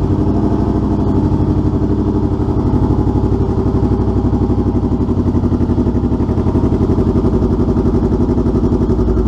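2015 Honda CB500F's parallel-twin engine idling steadily with even, loud exhaust pulses through an AnnPee multicolour slip-on muffler. The muffler has only tiny dB killers and little baffling and is fitted to a cat-deleted 2-inch exhaust, so it is practically a straight pipe and a lot louder than stock.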